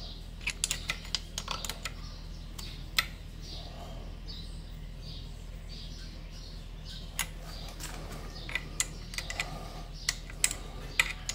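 Irregular small metallic clicks and taps of screws, washers and hand tools as the carburetor is fitted back onto a Yamaha 25 hp outboard motor. There is a quick cluster of clicks in the first two seconds, a single sharp one about three seconds in, and scattered ones in the second half, over a steady low hum.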